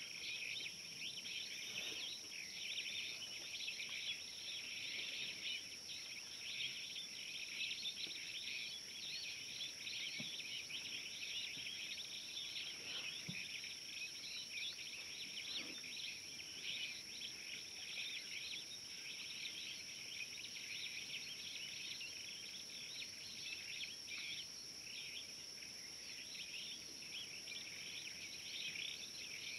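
Dense, steady chorus of insects chirring, with a continuous high whine above it.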